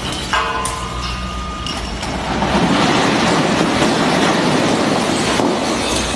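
Stacked plastic crates full of glass bottles toppling and crashing onto a concrete floor: a continuous loud clattering din with sharp smashes of breaking bottles.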